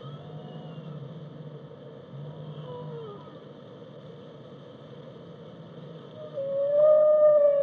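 Whale song: faint short gliding calls over a steady low drone, then, about six seconds in, a loud, long pitched call that rises slightly and holds.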